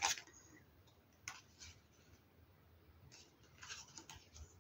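Near quiet, with a faint click about a second in and a few soft, short rustles near the end, like small handling noises.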